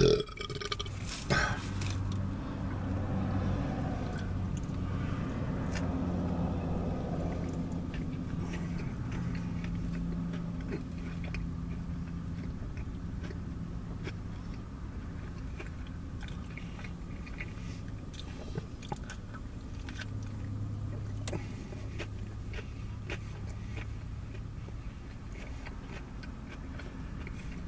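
Close-up chewing and biting of a sub sandwich, with small scattered clicks and mouth noises. These sit over a steady low car hum that swells and fades, heard inside the car's cabin.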